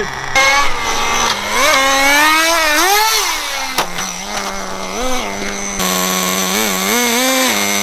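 HSP Warhead nitro RC truck's small two-stroke glow engine revving up and down in repeated rising and falling sweeps as the truck drives. In the last couple of seconds it holds a steady idle with a few quick throttle blips.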